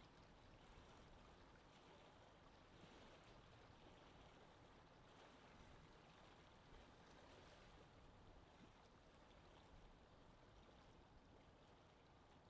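Faint, steady wind ambience: an even, soft rushing noise with no distinct events.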